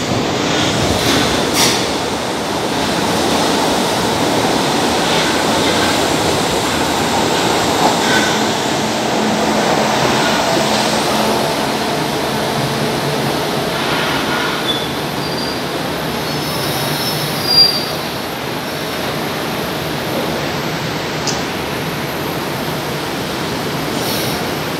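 Metro train pulling into an underground station and slowing to a stop: a steady rumble of wheels on rail that eases off about halfway, with faint high wheel squeals and one short sharp knock near the end as it halts.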